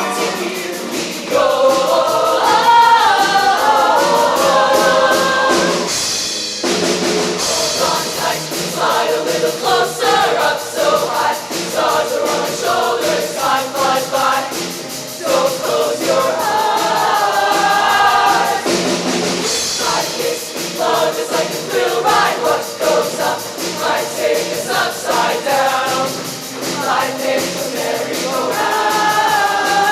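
Choir singing in harmony, with short breaks in the singing about six and nineteen seconds in.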